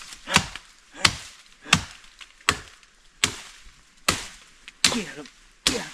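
Chopping with a blade: about eight evenly paced blows, a little more than one a second, each a sharp crack with a dull thud under it.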